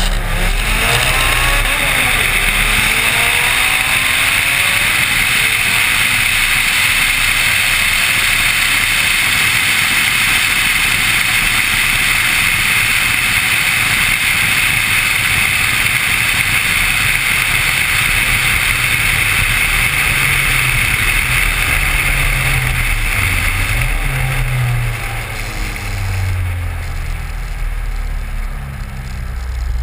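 Turbocharged Honda Civic at speed on a drag pass, heard through a camera mounted on the outside of the car: a loud, steady rush of wind over the engine. Engine pitch climbs in the first couple of seconds. About 24 s in the rush eases as the car slows, leaving a low engine note.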